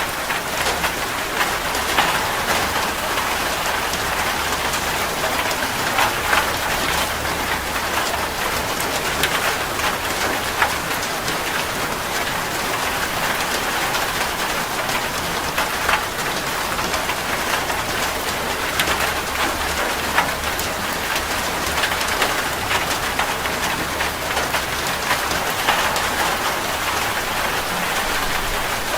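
Heavy rain falling steadily on a metal roof, a dense hiss dotted with many sharp individual drop hits.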